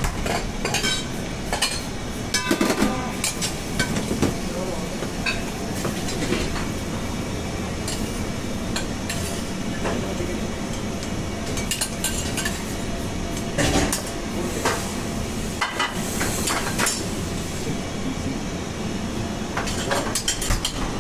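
Commercial kitchen clatter: metal utensils and dishes clinking and knocking at irregular moments over a steady background hum of ventilation.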